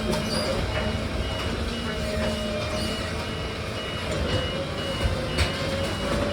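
Truck reversing alarm beeping steadily, about one and a half beeps a second, over a running engine.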